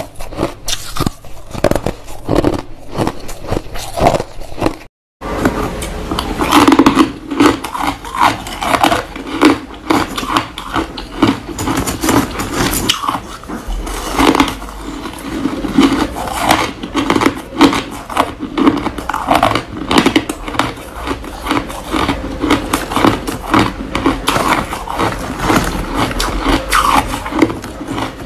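Close-up crunching of shaved ice being bitten and chewed: a dense, irregular run of crisp crunches with no speech. There is a short gap of silence about five seconds in.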